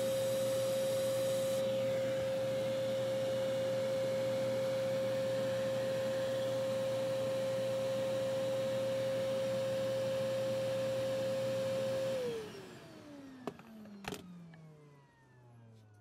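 Vacuum cleaner running with a steady whine, switched off about twelve seconds in, its pitch falling as the motor spins down. Two sharp clicks follow.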